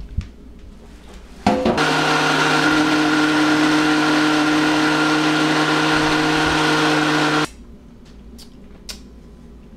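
A countertop blender starts about a second and a half in and runs at a steady pitch for about six seconds, puréeing a thin gochujang honey-garlic sauce, then stops suddenly.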